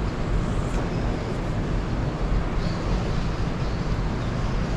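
Steady rush of water flowing through a concrete channel, with a low rumble of wind on the microphone.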